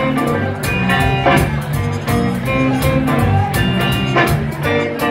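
Live blues band playing an instrumental passage: electric guitar and electric bass over a drum kit keeping a steady beat.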